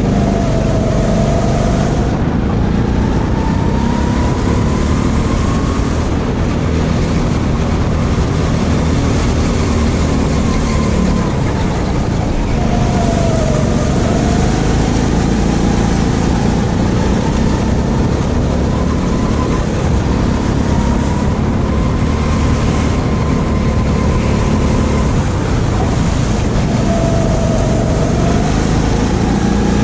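Go-kart motor heard from onboard, running hard through a lap, its pitch rising and falling again and again as it speeds up out of corners and slows into them.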